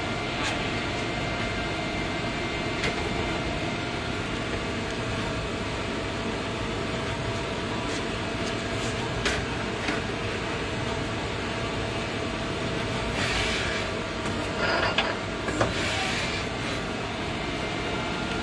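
Mori Seiki CL-20A CNC lathe running, its spindle and 8-inch power chuck spinning: a steady machine hum with a held mid-pitched tone, a few light clicks, and two brief hissing bursts near the end.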